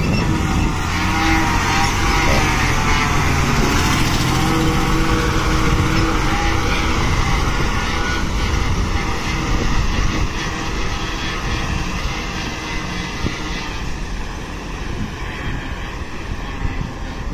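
A motor vehicle engine running, its pitch shifting during the first half, then easing slightly in loudness over the last few seconds.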